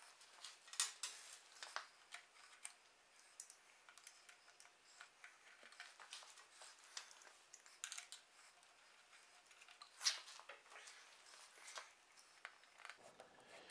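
Faint, scattered small metallic clicks and taps as cover screws are started by hand and with a screwdriver into the Model T Ford transmission cover, the sharpest tick about ten seconds in.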